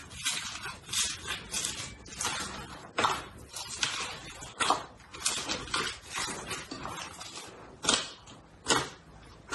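Slime being squished and pressed by hand: a string of short squishes, about one or two a second, some louder than others.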